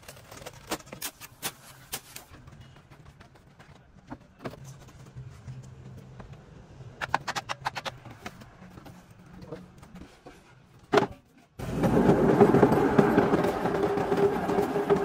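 Scattered metal clanks and taps over a faint low hum. About eleven and a half seconds in, the sound cuts abruptly to loud, steady machinery running with a droning hum.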